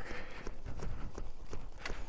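Small high-pressure hand pump being worked to reinflate a plugged tubeless motorcycle tire, giving a quick run of clicks and knocks.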